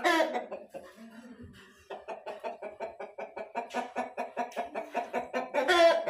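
Chicken cackling: a loud call, then a steady run of rapid clucks, about five or six a second, ending in another loud drawn-out call.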